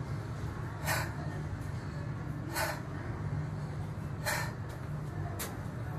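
A man breathing hard, out of breath after burpees done to muscular failure: four heavy breaths, about one every second and a half, over a steady low hum.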